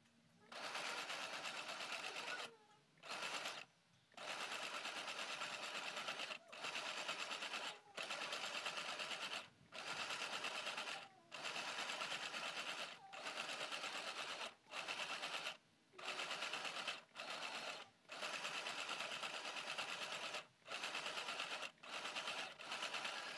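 Small DC 3V mini sewing machine stitching ruffles into fabric in about fifteen short runs of one to two seconds, each with a fast, even needle rattle, stopping briefly between runs as the fabric is repositioned.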